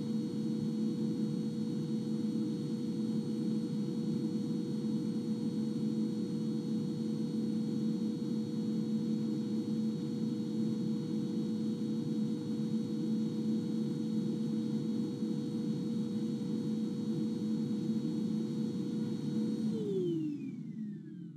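Vacuum cleaner running steadily, a dense rushing noise with a steady motor whine, heard through the microphone inside an ISOVOX portable vocal booth. Near the end it is switched off: the whine falls in pitch as the motor spins down and the noise dies away.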